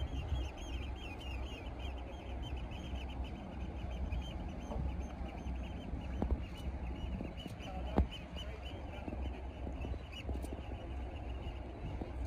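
Low steady rumble of fishing boats motoring across the harbour, with a rapid high chirping running over it and a single sharp click about eight seconds in.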